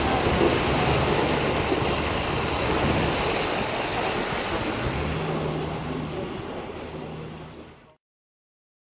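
Wind rushing over the microphone and water noise, with a boat motor's low steady hum, aboard a moving river boat. It fades and cuts off to silence near the end.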